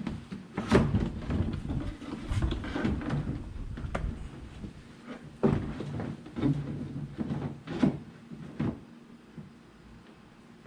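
Plastic wheel well liner being test-fitted into a pickup's rear wheel well. It knocks and clunks several times against the truck's body as it is pushed into place, with rubbing in between.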